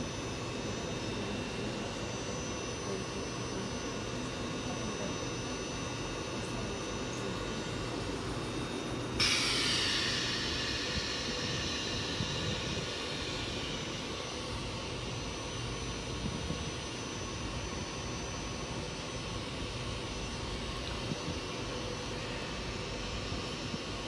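ScotRail Class 334 electric multiple unit humming steadily at the platform. About nine seconds in, a sudden loud hiss of compressed air starts and fades away over several seconds.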